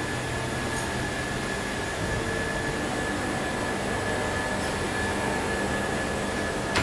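Steady drone of knife-factory machinery and ventilation, with a thin steady whine running over it.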